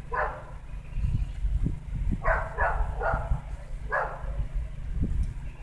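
A dog barking: five short barks, three of them in quick succession about two seconds in, over a steady low rumble.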